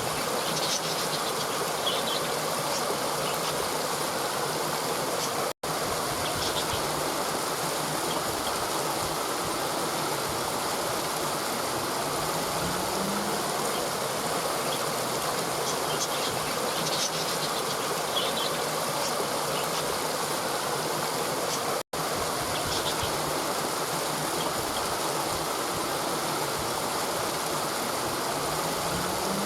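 Flowing river water rushing steadily over rocks, with faint high chirps now and then. The sound cuts out for an instant twice.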